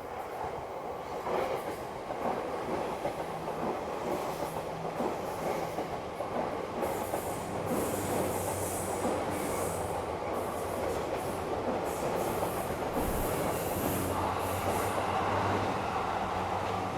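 Train running on the rails, a steady rumble with a low hum under it, growing a little louder. A high wheel squeal comes and goes through the middle stretch.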